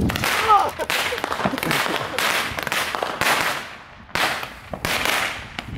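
Consumer multi-shot firework cake, a 92-shot finale, firing shot after shot into the air. Each shot is a sharp pop with a hissing tail, coming about every half second to a second, the loudest about half a second in.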